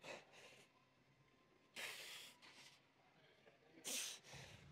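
Three short, hissing breaths from a lifter, about two seconds apart.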